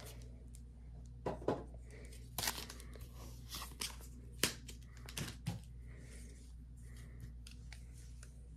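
Foil trading-card booster pack wrappers and box packaging crinkling and rustling as they are handled, in a run of sharp crackles over the first five or six seconds that then thins out.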